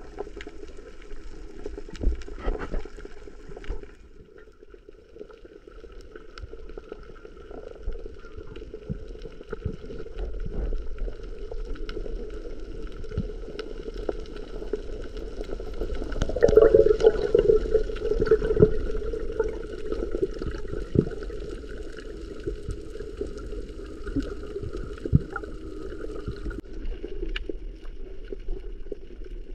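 Muffled underwater sound as picked up by a camera below the surface: a dull wash of water noise with scattered sharp clicks and crackles. A louder gurgling stretch comes about sixteen seconds in.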